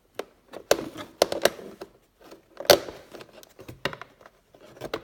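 Irregular sharp metallic clicks and taps from small screws and a hand tool being handled, with the loudest knock a little past halfway.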